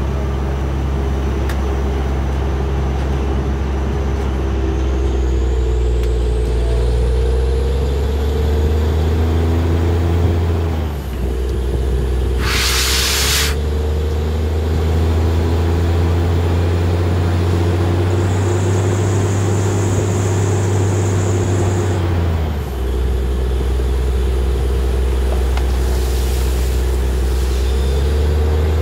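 Truck-mounted borewell drilling rig running steadily under load. Its note dips and shifts briefly about eleven seconds in and again near twenty-three seconds. About twelve seconds in there is a hiss that lasts about a second.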